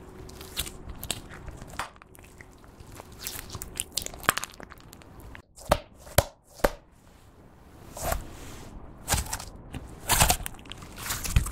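Clear slime being kneaded and stretched by hand, giving irregular wet clicks, crackles and pops as air pockets burst, with a cluster of louder pops near the middle.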